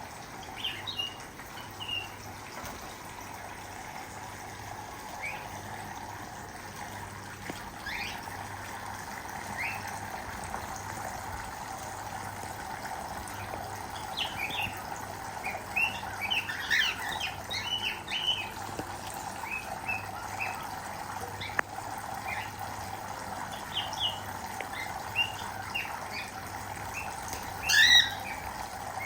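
Cockatiels chirping and squawking in short, scattered calls. The calls are busiest in the middle, and one loud squawk comes near the end. Under them runs the steady sound of their bath water.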